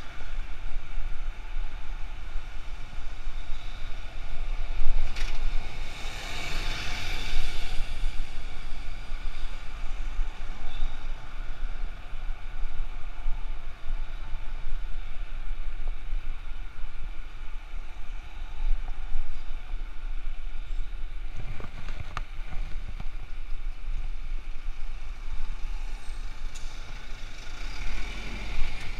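City road traffic heard from a moving bicycle: cars and a bus passing close by, over a steady low rumble of wind on the camera's microphone. A louder rush of noise swells about six seconds in and fades two seconds later.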